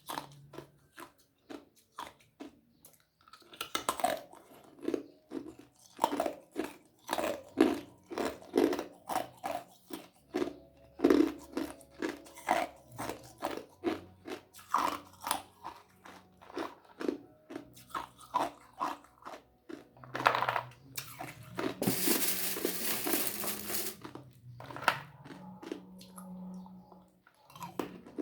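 Ice being bitten and chewed close to the microphone: rapid crunches, several a second, with a louder rushing noise lasting about two seconds about three-quarters of the way through.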